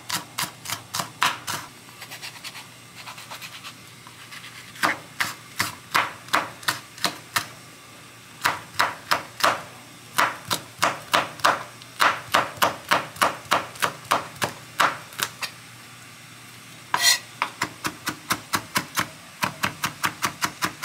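Knife chopping on a cutting board in steady strokes of about three a second, in several runs with short pauses. One sharper, brighter knock comes about seventeen seconds in.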